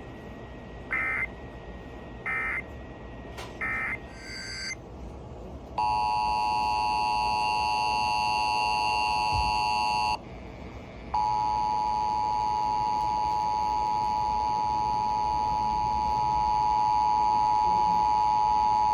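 Emergency Alert System tones: three short bursts of digital data tone, the end-of-message code, about a second apart at the start, then the EAS two-tone attention signal. The attention signal sounds steadily for about four seconds, breaks off for a second, then resumes and holds, growing slightly louder near the end.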